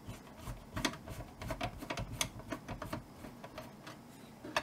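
Phillips screwdriver turning a screw out of the side of a network video recorder's case: light, irregular clicks and ticks, several a second, with a sharper click near the end.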